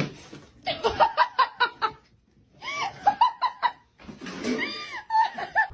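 A person laughing in three bouts of quick, repeated 'ha-ha' pulses, about five to a bout.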